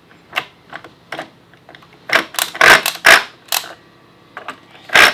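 Hard plastic toy screws and parts of a VTech Drill & Learn toolbox clicking and clacking as they are handled and set into the board: irregular sharp knocks, sparse at first, then a quick flurry a couple of seconds in and another near the end.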